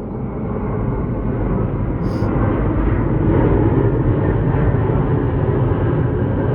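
Airbus A350-900's Rolls-Royce Trent XWB jet engines heard during the landing: a deep, loud rumble that builds over the first few seconds and then holds steady.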